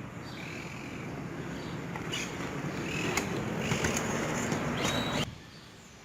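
A BMX ride outdoors: a steady rushing noise that grows louder, with a few sharp clicks and knocks, cutting off abruptly about five seconds in.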